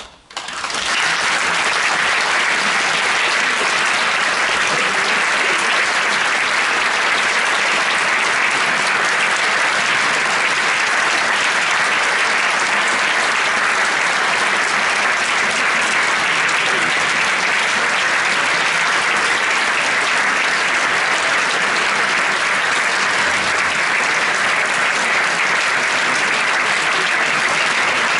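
Concert audience applauding, breaking out suddenly and settling within about a second into steady clapping.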